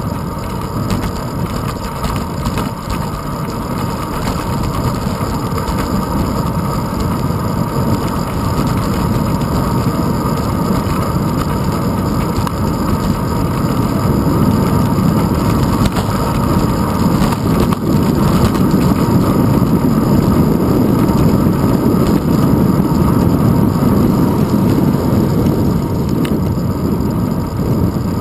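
Steady wind and road rumble on a handlebar-mounted GoPro Hero 2 on a moving bicycle, growing louder as the ride goes on.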